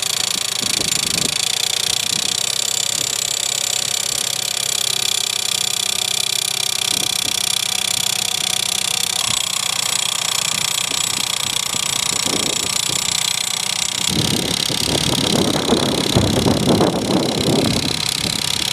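Wintex MCL3 automatic soil sampler running steadily on its small engine. About three-quarters of the way in, a louder, rougher noise comes in as the sampling probe is driven down into the soil.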